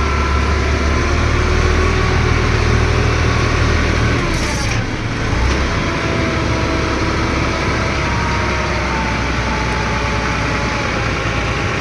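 Engine of a ground-drilling machine running steadily under load, its pitch dipping briefly and then recovering about four to five seconds in.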